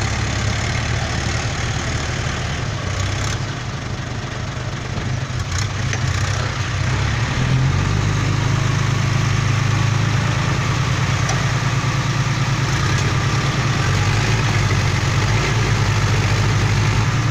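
Dump truck's diesel engine running steadily as the truck sits stuck in mud up to its axle; the engine note grows louder about seven seconds in.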